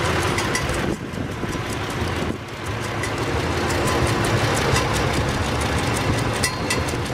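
Vintage farm tractor engine running steadily, heard from the driver's seat, with a rapid ticking clatter over its low note; the sound drops briefly about a second in and again a little later.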